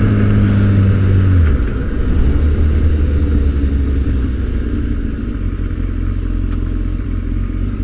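Kawasaki ZX-10R motorcycle's inline-four engine running while riding, heard over wind noise; the engine note drops about a second and a half in, then runs low and steady.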